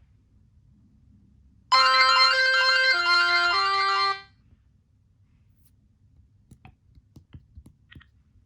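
Motorola RAZR V8 phone playing a short ringtone melody through its loudspeaker: about two and a half seconds of clear stepping notes that stop abruptly. A few faint clicks follow near the end.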